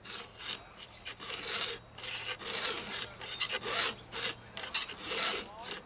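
Round chainsaw file rasping back and forth across a saw-chain cutter in a Husqvarna file guide, in a run of even strokes: sharpening a slightly dull cutter until its dull corner is filed away.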